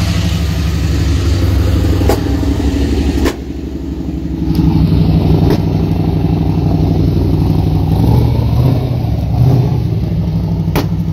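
Camaro Z28's V8 running through a freshly fitted exhaust with mufflers while its fuel pressure is being turned down. It drops off sharply a little over three seconds in, then picks up again and is revved. A few sharp cracks come over the top, which the mechanic calls the engine popping.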